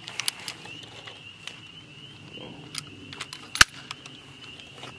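Handling noise of a SIG Sauer MCX Rattler short-barrelled rifle: scattered sharp clicks and light metallic rattles as its controls and the shooter's gear are worked, with one louder click about three and a half seconds in.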